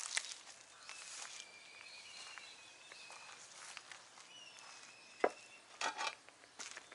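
Footsteps of a person walking slowly over rough concrete and grit, a few scuffing steps with a sharp click a little past five seconds in, over faint, thin, high whistling tones.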